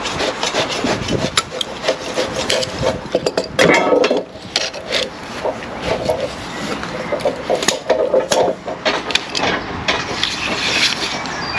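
Knife scraping and sawing at the plastic nozzle of a silicone cartridge, with many sharp clicks and rattles of handling and a louder scrape a little under four seconds in. Near the end the cartridge is fitted into a caulking gun.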